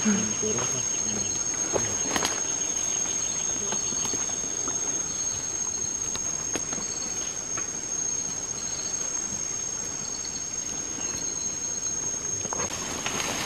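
Rainforest insects: a steady high-pitched insect drone with repeated short trains of chirping pulses, and a few brief clicks.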